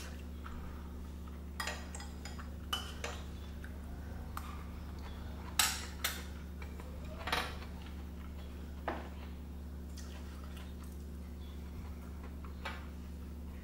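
Metal spoon and chopsticks clinking against a pot of spicy rice cakes: about nine scattered sharp clinks, the loudest about five and a half seconds in, over a steady low hum.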